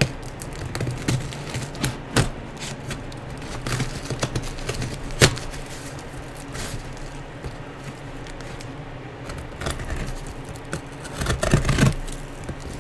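Packing tape and cardboard of a large shipping box being cut and pulled apart: scattered scrapes and clicks, one sharp loud click about five seconds in and a burst of louder crackling near the end.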